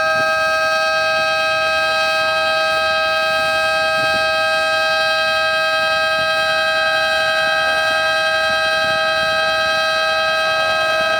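Ship's horn sounding one long, unbroken blast: a loud, steady chord of several tones that does not waver.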